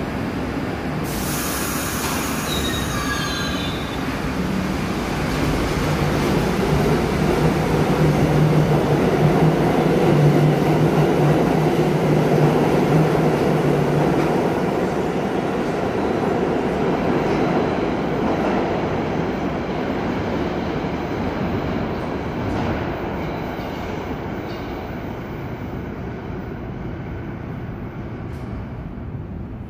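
R62A subway train pulling out of the station. A sudden hiss and brief squeals about a second in, then a low hum and wheel rumble that build up, peak, and fade as the train leaves.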